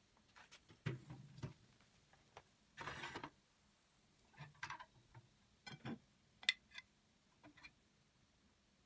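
Faint metal clicks and knocks from handling a small electric kebab grill: a short scrape about three seconds in as the metal lid comes off, then skewers clinking against the metal rack and tray.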